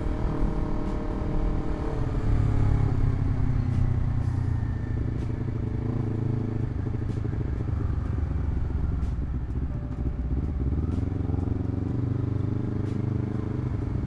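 Honda CBR250RR SP parallel-twin engine through an aftermarket Villain MV2 exhaust, running under way at low speed. It rises in pitch as the throttle opens about two seconds in, holds fairly steady, dips, then climbs again a little before the end.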